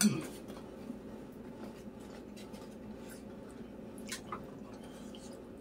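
Quiet room tone with a few faint light clicks of a fork against a salad bowl, around four seconds in.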